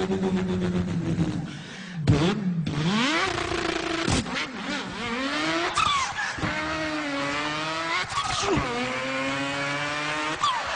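A man imitating a car engine with his voice: a steady held note that dips, then a series of rising revs broken by short sharp breaks like gear changes.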